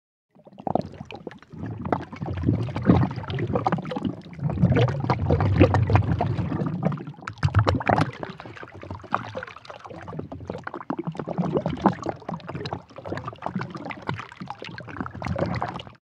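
Unprocessed water sound effect of splashing and gurgling water. It comes in irregular surges full of small sharp clicks and starts about half a second in.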